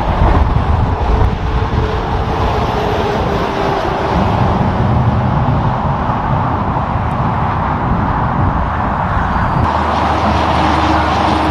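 Highway traffic passing: tyre and engine noise of cars and heavy trucks, including a front-loader garbage truck's diesel. About two seconds before the end the sound changes abruptly to a steadier low rumble of traffic.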